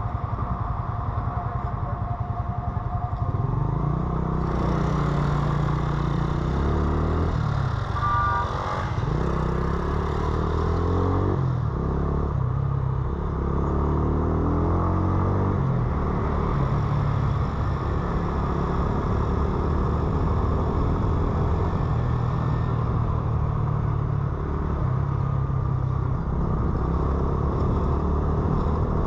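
Motorcycle engine running under the rider in city traffic. It is quieter for the first few seconds, then pulls away with its pitch climbing and dropping through several gear changes, and settles to a steadier run in the second half.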